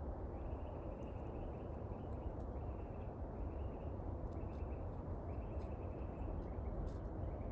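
Outdoor ambience: a steady low wind rumble on the microphone, with a high buzzing call that comes and goes in short spells of about half a second to a second.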